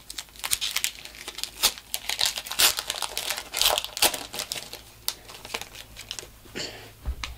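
Pokémon booster pack's foil wrapper crinkling as it is torn open, a dense run of crackles that thins out after about five seconds.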